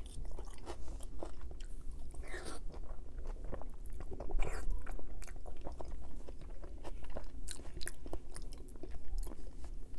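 Close-miked chewing and biting: lasagna and a green pepper being eaten, with a steady run of wet mouth clicks and smacks.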